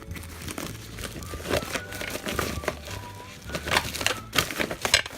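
Packaging being handled and opened: irregular crinkling and crackling with a few sharper knocks, busiest and loudest in the second half.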